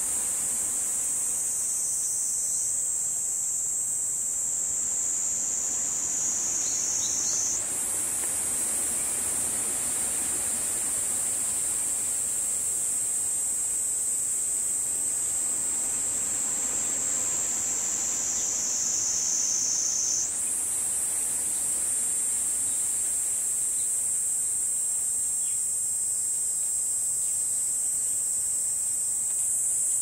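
Insects singing in a continuous high-pitched buzzing drone, which sinks slightly in pitch and jumps back up twice, about a quarter and two-thirds of the way in.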